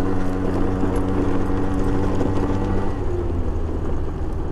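CPI Aragon GP 50 scooter's 50 cc two-stroke engine running steadily under way, its note changing about three seconds in.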